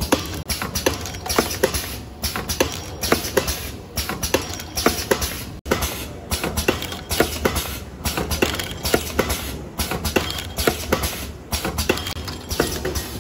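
Automatic liquid sachet packing machine running, its mechanism clattering with repeated sharp clicks and knocks about twice a second over a low hum.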